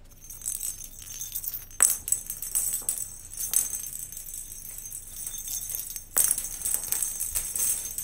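Plastic cat-toy balls with bells inside, jingling and rattling as they roll and are batted across a wooden floor, with a few sharp knocks. The jingling grows louder about six seconds in.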